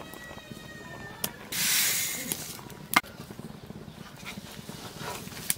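A short hissing rush as sugar is tipped into the wok of simmering coconut milk, fading over about a second, then a single sharp clack of a metal spatula against the iron wok. Small scrapes and clicks of the utensils sound around them.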